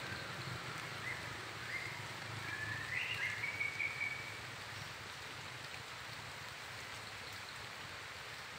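Steady outdoor hiss with an animal's high chirping calls: several short rising chirps over the first four seconds, ending in one longer held note.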